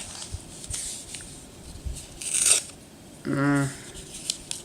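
Plastic packaging of a Yu-Gi-Oh card product rubbing, scraping and crinkling as hands struggle to get it open, with a louder rasp about two and a half seconds in. A short hummed grunt follows about a second later.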